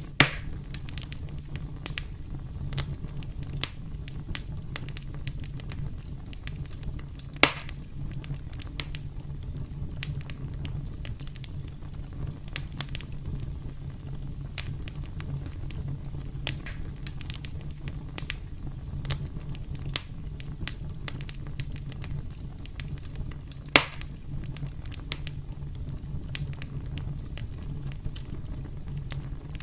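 Campfire burning: a steady low rumble of flames with scattered crackles from the wood and three louder pops, one right at the start, one about a quarter of the way through and one about three-quarters of the way through.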